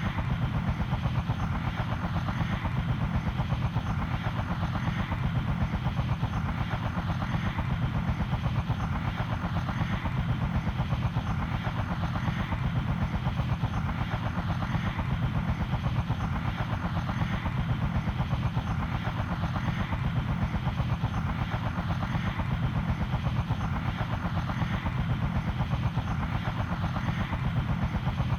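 Helicopter running steadily, its rotor blades chopping in a fast, even beat over the engine, with a faint high whine above.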